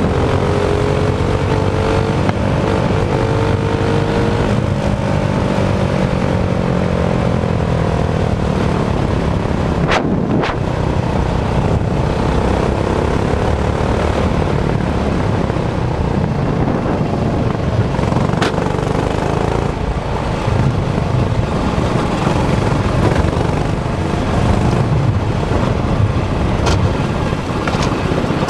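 Go-kart engine running under way, its pitch rising and falling with the throttle, mixed with heavy wind and road noise on the kart-mounted camera. There is a sharp click about ten seconds in.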